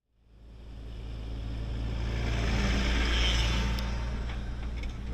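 New Holland tractor towing a slurry tanker passing close by: a steady low engine hum with a hiss over it grows to its loudest about three seconds in, then eases off slightly.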